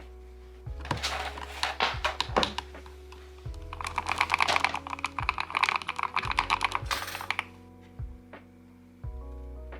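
Typing on a custom mechanical keyboard with hand-lubed switches: a short run of rapid key clicks, then a longer, faster burst of keystrokes.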